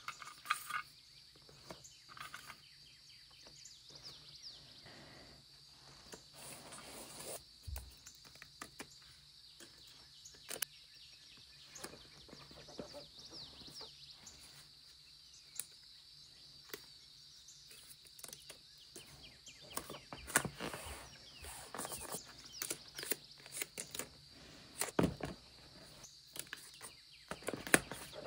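Paper stickers being picked from a tin, peeled off their backing and pressed onto a paper craft: soft scattered paper crinkles, rustles and light taps, busier near the end. A faint steady high-pitched hiss runs underneath.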